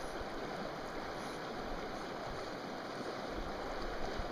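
Steady rushing of a shallow river flowing over rocks, an even wash of water noise with no breaks.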